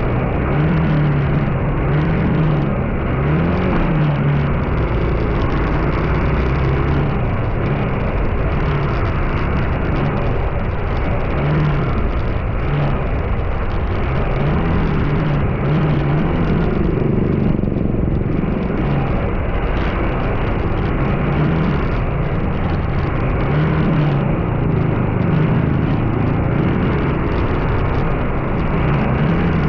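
Vehicle engine and road noise while driving: a steady rush with the engine note rising and falling again and again as the vehicle speeds up and eases off.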